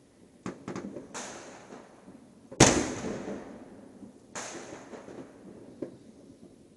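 Fireworks going off: a scattering of bangs, the loudest a sharp crack about two and a half seconds in, and another strong one past four seconds. Each bang trails off in a long echo.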